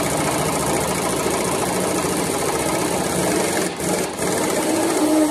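Pneumatic impact wrench running in one long burst, with two short let-ups of the trigger near the end, working a large suspension bolt loose.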